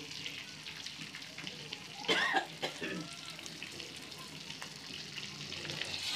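Masala-coated neiparai fish pieces sizzling and crackling as they shallow-fry in oil on a dosa tawa. A brief louder sound breaks in about two seconds in.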